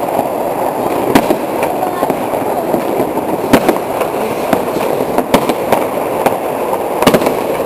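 Fireworks and firecrackers going off: a constant din of distant bangs and crackling, with sharper, louder bangs at irregular intervals, about one a second.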